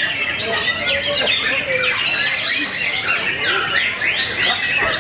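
Several white-rumped shamas (murai batu) singing over one another in a contest chorus: a dense, unbroken tangle of quick whistles, chatters and trills.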